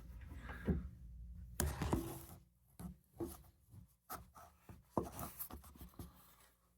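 Handling noise close to the microphone: irregular clicks, taps and rubbing that thin out toward the end.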